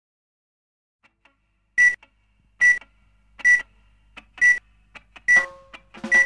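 Film-leader countdown beeps: six short, high beeps, one just under every second, starting about two seconds in. Other tones come in under the last two.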